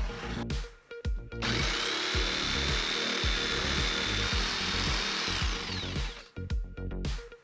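Electric jigsaw running and sawing through a stack of pine boards: a short burst about a second in, then a steady high motor whine with cutting noise for about four seconds that winds down near the end. Background music with a beat before and after the cut.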